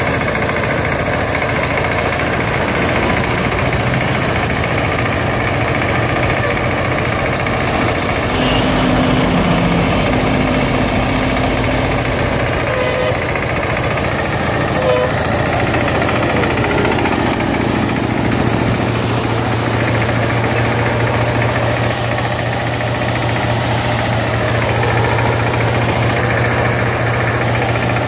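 Small single-cylinder diesel engine running steadily, driving a drum-type paddy thresher as rice stalks are fed in and threshed.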